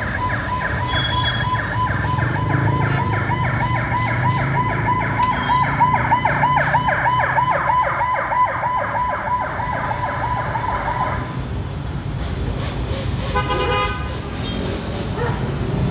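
An electronic siren or alarm sounding in fast, evenly repeated chirps, about four or five a second, that cut off suddenly about eleven seconds in, over a low steady traffic rumble.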